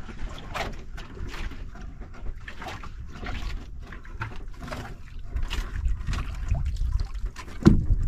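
Sea water sloshing and splashing against the hull of a small outrigger boat, over an uneven low rumble, with a louder knock near the end.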